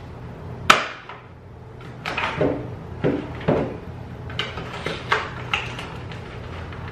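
Knocks and clicks of product packaging being handled and set down, with a sharp knock a little under a second in and a busier clatter about two to three seconds in.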